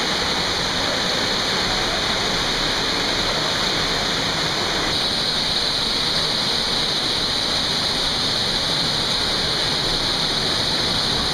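Steady, even rush of creek water tumbling over rocks in a small cascade.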